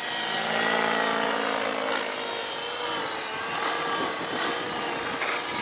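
Electric-converted Thunder Tiger Raptor 90 RC helicopter's motor and rotor blades whining steadily, several even tones held throughout.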